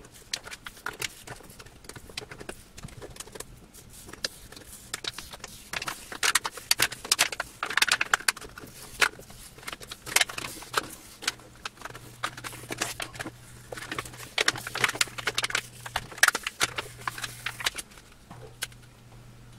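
Old, damaged polarizer film being peeled by hand off an LCD panel's glass plate, little by little: irregular crackling and ticking in clusters as the strong glue lets go.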